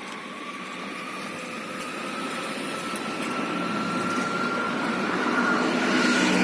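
A motor vehicle's engine coming closer, growing steadily louder, with a faint whine that rises slowly in pitch.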